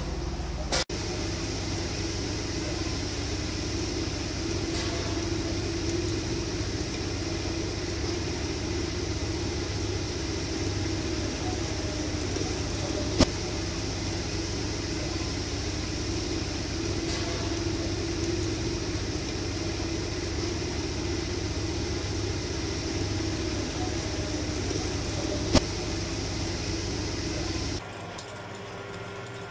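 Steady drone of workshop machinery running, with a low hum under it and two sharp clicks, one about halfway and one near the end. The drone drops suddenly to a quieter sound shortly before the end.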